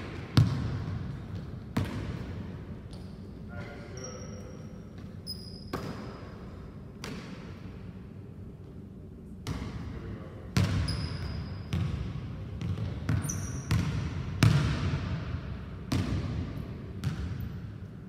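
A basketball bouncing on a hardwood gym floor and striking the hoop during shooting practice: a string of irregular sharp thuds that echo around the hall, coming quicker in the second half, with a few short high squeaks of sneakers on the floor.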